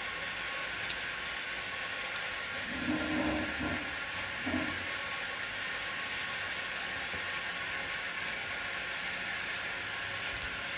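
A steady hiss with a few light clinks of a ladle against a ceramic bowl and an aluminium pot as soup is served. Two short low hums come about three and four and a half seconds in.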